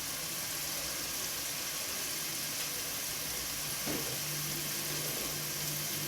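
Tomato-paste sauce sizzling steadily as it fries in oil in the pot, with a faint low hum underneath and a light knock about four seconds in.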